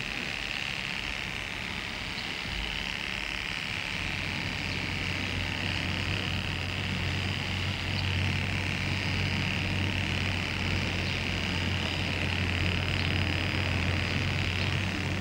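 Electric hair clippers buzzing steadily while shaving a head, the low hum growing stronger about four seconds in.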